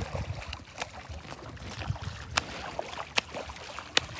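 A hooked golden rainbow trout thrashing at the surface close to the bank: a handful of sharp, irregular water splashes and slaps.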